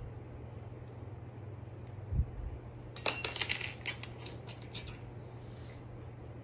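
Metal parts of a dog wheelchair's aluminium frame and clamps clinking and rattling as it is handled during assembly. A dull knock comes about two seconds in, then a quick run of bright, ringing metallic clinks a second later that dies away within about a second.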